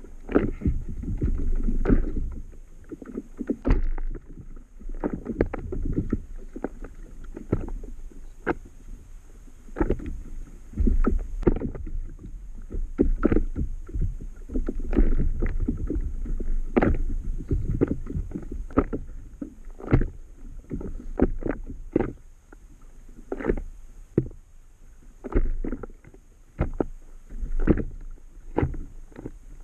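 Small waves slapping and knocking against the hull of an Itiwit 11 inflatable stand-up paddle board in irregular bursts, over a steady low rumble.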